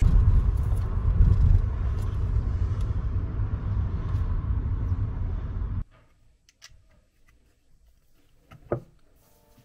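Road noise inside a moving car: a steady low rumble. It cuts off suddenly about six seconds in, leaving a quiet room with a few faint clicks and one sharper tap near the end.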